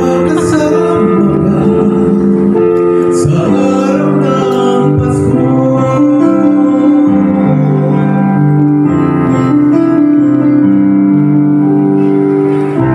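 A man singing a song into a microphone over a steady keyboard accompaniment of long held chords.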